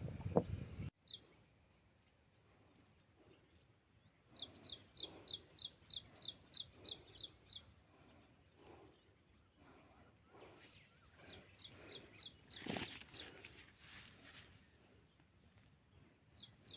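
A bird calling in rapid runs of short, falling high notes, two runs of about a dozen notes each, over a faint background. At the start there is a second of rustling noise that cuts off abruptly, and about 13 seconds in a brief noisy burst sounds.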